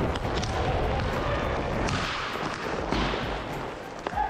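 Inline skate wheels rolling over the plastic tile rink floor as the wearer skates, a steady low rolling noise with a few light clicks.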